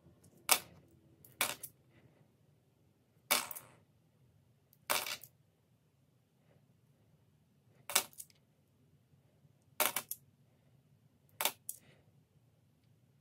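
Australian $1 coins clinking as they are set down one at a time while being checked: about seven short, sharp clinks at uneven gaps of a second or two, some with a quick second clink.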